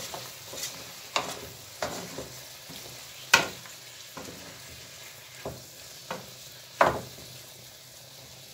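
Wooden spoon stirring chicken and vegetables in a frying pan over a soft, steady sizzle, with scattered knocks and scrapes of the spoon against the pan. The loudest knock comes about three seconds in.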